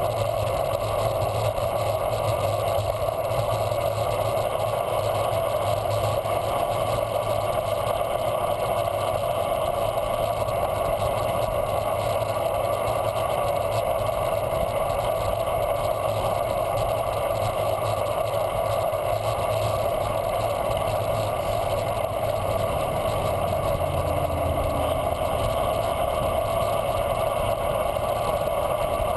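Steady rush of wind and tyre noise from a bicycle rolling along a paved path, picked up by a handlebar-mounted camera.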